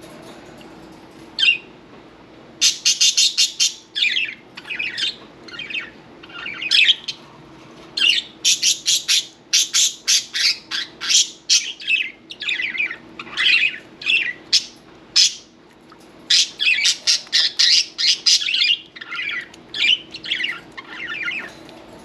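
Budgerigar calling: rapid, chattering runs of high chirps and squawks in bursts, with short pauses between them.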